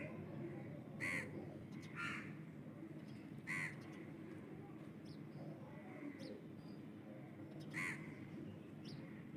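Faint bird calls: short separate calls, about six in all, some a second apart and others several seconds apart, over a steady low background noise.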